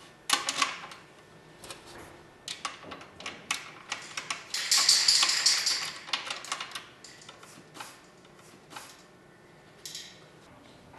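Hands fitting a metal clamp plate and nut onto a metal profile rail: a string of irregular clicks and light metal taps, with a busier, louder stretch of scraping about halfway through.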